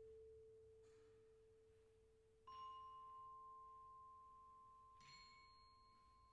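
Very quiet ensemble music of long-ringing, pure-sounding notes. A low note is held throughout, a higher struck note enters about two and a half seconds in, and a faint bell-like strike comes near the end.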